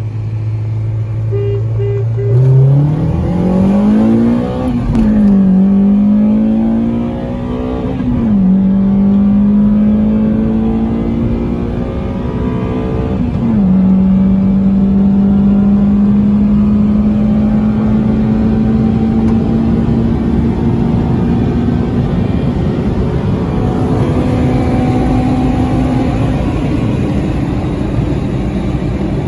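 Honda Accord Type R's H22A VTEC four-cylinder, running without a catalytic converter, heard from inside the cabin under full-throttle acceleration. A steady low note gives way to sharply climbing revs about two seconds in. Three quick upshifts each drop the pitch, the last about halfway through, followed by a long slow climb in the top gear.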